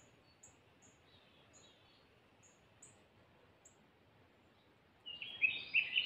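Small songbirds calling: a series of faint, thin, high ticks repeated every half second or so, then from about five seconds in a louder burst of warbled song.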